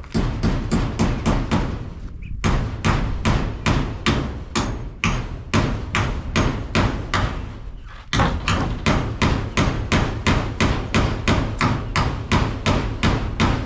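A hammer striking in a fast, steady run of blows, about three to four a second, pausing briefly twice, as in driving nails while building a chicken coop.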